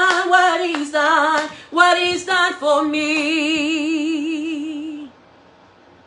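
A single voice singing a gospel chorus unaccompanied, in short phrases that end on a long held note with vibrato. The note stops about five seconds in.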